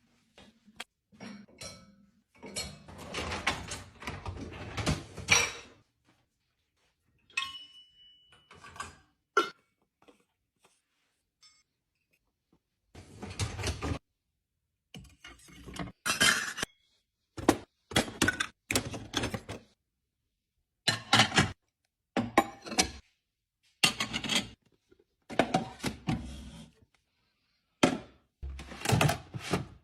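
Dishes and kitchenware being unloaded from a dishwasher: a run of separate clinks, clatters and thunks with short pauses between them, and a few longer rattling stretches.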